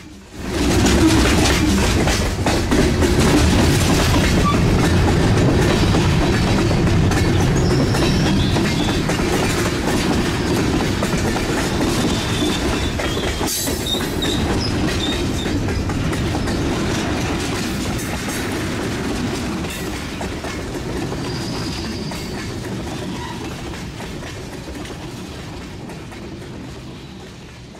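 HO scale model train running over a trestle bridge on a model railroad layout: a steady rolling rumble with fast fine clicking from the wheels on the track. It starts suddenly about a second in and slowly fades toward the end.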